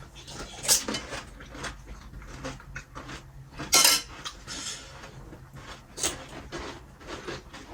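Utensils and dishes clinking and knocking irregularly while eating, with a few louder sharp clinks: one about a second in, a longer one near the middle, and one about six seconds in.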